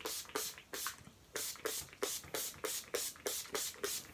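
Urban Decay De-Slick setting spray's pump bottle spritzed at the face over and over, a quick run of short hissing sprays at about four a second.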